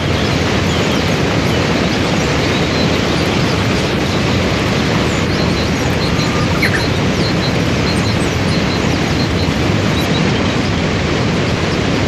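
Waterfall and rapids rushing: a loud, steady wash of falling and churning water.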